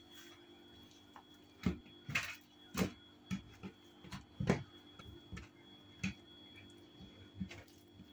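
Irregular light taps and knocks of hands handling a long rolled rope of börek dough on a wooden board, about a dozen over several seconds and most of them in the first half, over a faint steady hum.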